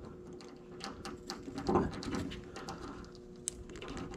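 Small clicks and rustles of fingers pushing a blue insulated spade terminal into a blue T-tap wire connector and handling the wires, with a louder soft bump a little under two seconds in. A faint steady hum sits underneath.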